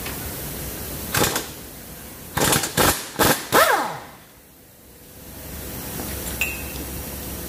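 Pneumatic impact wrench fired in about five short bursts on the lower control arm's ball-joint nut of a Mazda CX-5, the last burst winding down with a falling whine.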